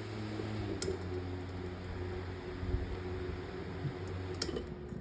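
Electric metal table fan running, a steady motor hum with the rush of air from its blades, and a couple of sharp clicks. The hum fades near the end.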